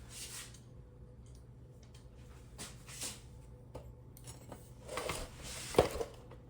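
Small screws and plastic mirror parts being handled: scattered faint clicks and rattles, busier toward the end with one sharper click near the end.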